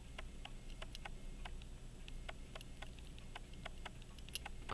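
Faint, fairly even ticking at about four ticks a second from an Illinois Springfield 18-size key-wound pocket watch movement, running again as it is being reassembled.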